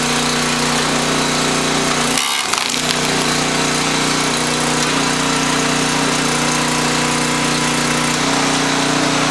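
A 10 HP Briggs & Stratton engine runs steadily on a log splitter, driving the hydraulic ram through a log. The note briefly dips about two seconds in, then steadies again.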